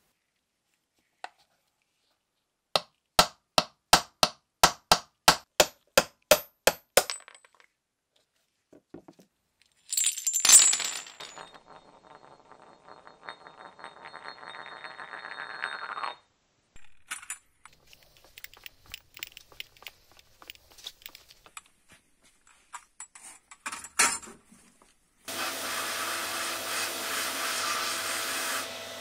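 Small metal parts clinking on a hard tabletop: a run of about a dozen sharp clicks that fade, then a loud strike and a piece spinning and rattling down like a dropped coin, speeding up before it stops, then scattered light clinks. About 25 seconds in, a sandblasting cabinet's blast gun starts with a steady hiss and a low hum.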